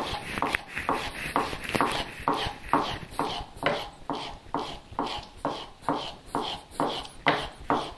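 A 3/4-inch steel chisel stropped bevel-down on a leather strop charged with chromium oxide compound: quick, even back-and-forth rubbing strokes, about two or three a second. This is the final polishing of the edge after the diamond plates.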